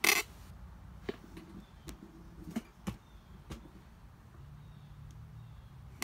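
A short clatter, then a few scattered light metal clicks and knocks: hands and tools working on the aluminium case of an air-cooled VW Beetle engine.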